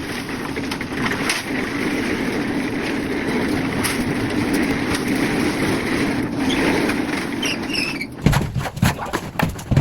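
Steady engine drone of concrete-pouring machinery. About eight seconds in it gives way abruptly to a run of uneven knocks and thumps.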